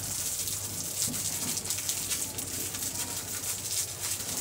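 Plastic crinkling and crackling in irregular small ticks as a sealed plastic cup of drinking water and its wrapping are handled and peeled.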